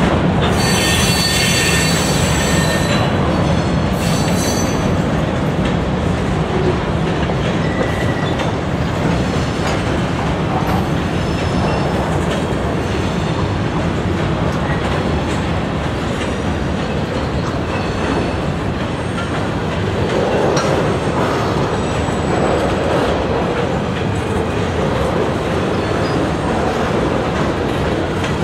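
Freight cars (covered hoppers, then tank cars) rolling past on curved track: a steady rumble and clatter of steel wheels on rail. High-pitched wheel squeal is strongest in the first few seconds, with fainter squeals later.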